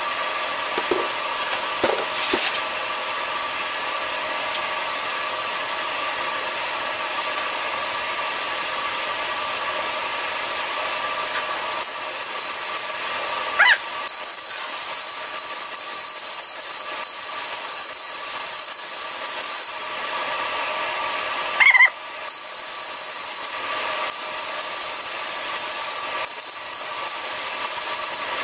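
Gravity-feed air spray gun hissing in long bursts as paint is sprayed onto a car panel, with short breaks between passes, starting about twelve seconds in. Under it runs a steady hum.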